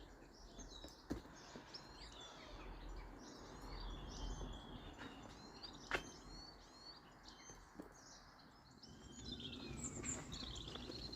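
Several small birds chirping and singing in the background, many short rapid notes overlapping, with one sharp click about six seconds in.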